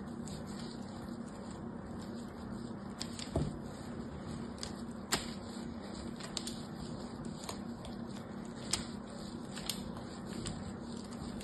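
Fingernail scratching and tapping along the carved grooves of a hard bar of soap, giving short crisp clicks every second or so, over a faint steady hum.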